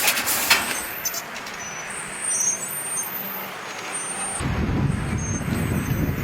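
Machinery: clicks and a hissing high whine that comes and goes, then a low engine-like rumble starts about four seconds in.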